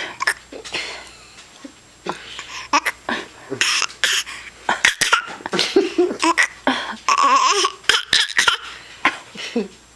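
A person laughing between repeated short, sudden hiccups, with breathy gasps between them and a longer laugh about seven seconds in.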